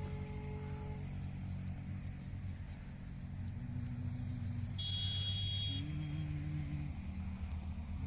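A motor engine running steadily, its pitch shifting slightly now and then, with a brief high tone about five seconds in.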